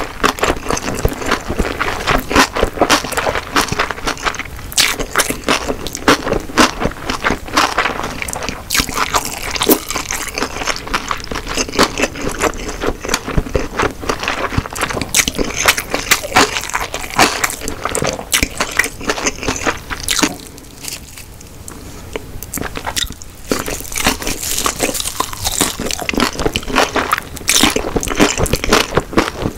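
A person chewing mouthfuls of food close to the microphone, in ASMR style: a dense run of wet, crunchy mouth clicks, with a short quieter pause about two-thirds of the way through.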